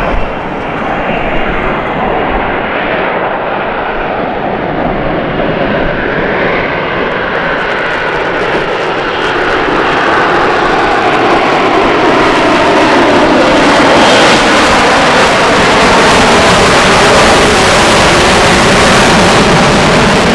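F-35B jet's engine and lift fan running at high power as it hovers in short take-off and vertical landing mode: a loud, steady jet roar with a slowly wavering tone. It grows louder between about eight and fourteen seconds in, then holds.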